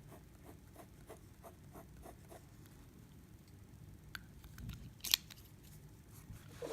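Faint handling of a fountain pen: a run of light ticks, then two sharp clicks about a second apart, the second one louder.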